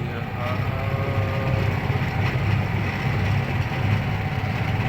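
Small motorboat engine running steadily: a low, throbbing drone.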